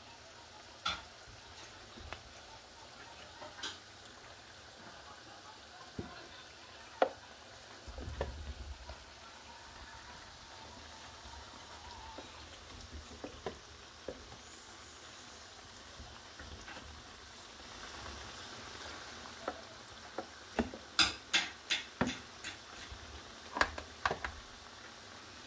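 Faint steady sizzle of chips frying in oil, with scattered clicks and, near the end, a quick run of metal taps and scrapes as a metal slotted turner cuts and lifts lasagna in a metal baking tray.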